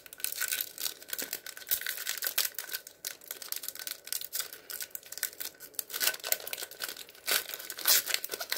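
Foil wrapper of a Panini football trading-card pack being torn open and crinkled by hand: a busy, irregular run of crackles.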